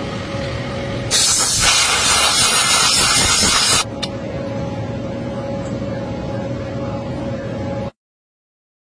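CNC milling machine running with a steady whine, broken for about three seconds by a loud hiss of spray. The sound cuts off to silence about eight seconds in.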